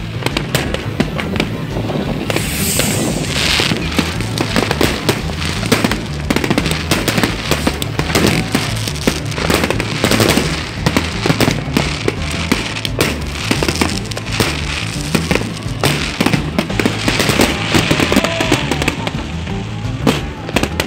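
Fireworks display: aerial shells bursting overhead in a dense, continuous run of bangs and crackles, with music underneath.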